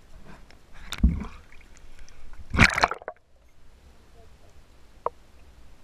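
Water splashing and sloshing from a snorkeler's movements: two bursts, about a second in and at about two and a half seconds, the second the louder, then a single short click near the end.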